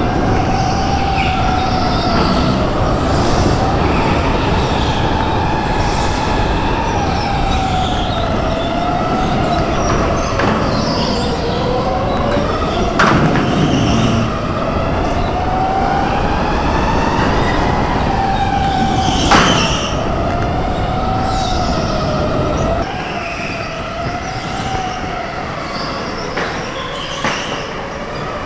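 Electric go-kart's motor whining, its pitch rising and falling as the kart speeds up and slows through corners, over the rumble of the kart on the track, heard from onboard. Two sharp knocks cut through partway in.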